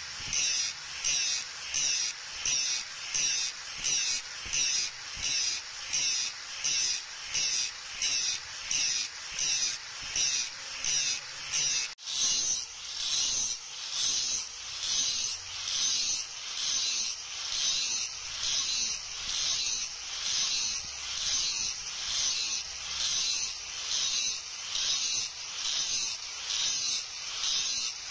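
Angle grinder with an abrasive disc grinding a leaf-spring steel kukri blade: a high whine that swells and fades in even strokes, about three every two seconds, as the disc is worked back and forth along the steel. The sound breaks off for an instant about 12 seconds in.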